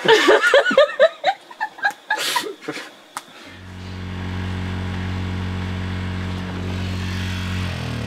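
Laughter and a few spoken words, then, about three and a half seconds in, a small portable generator's engine comes in and runs with a steady low hum.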